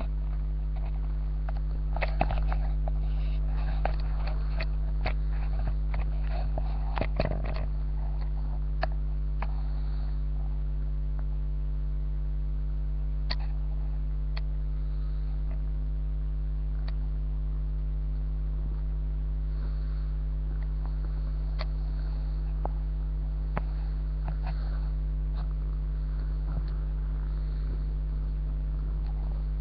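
Steady low electrical hum with a stack of steady overtones from a webcam microphone, with scattered clicks and rustles, thickest in the first several seconds and sparse after.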